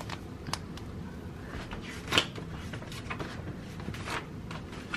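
Foil wipe packets rustling and crinkling in the hands, a string of small scattered crackles with one sharper crinkle about two seconds in.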